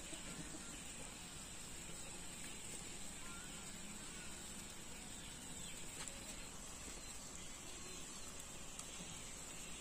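Faint steady hiss of quiet rural outdoor background, with a few faint bird chirps about three seconds in.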